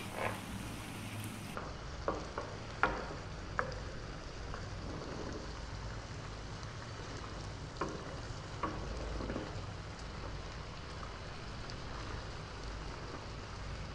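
Orecchiette and tomato sauce sizzling in a frying pan on high heat, stirred with a wooden spoon that knocks against the pan a few times.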